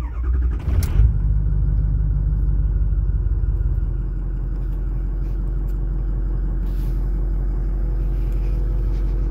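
Ford 6.0L Power Stroke V8 turbo-diesel cranked by the starter and catching within about a second, then idling steadily, heard from inside the truck's cab. The idle settles slightly quieter about four seconds in.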